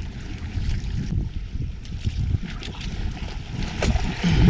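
Wind buffeting the microphone and choppy sea water washing against a small wooden outrigger boat, with a couple of light knocks and a louder surge of wind and water near the end.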